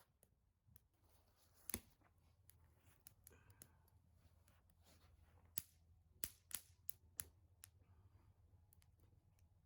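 Wood bonfire crackling: sparse sharp pops, the loudest about two seconds in and a quick run of them a little past the middle, over a faint steady low hum.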